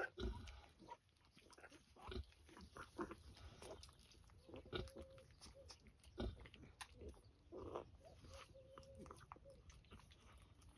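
Faint sounds of newborn piglets suckling at their sow: scattered soft smacking clicks, with a couple of short squeaks.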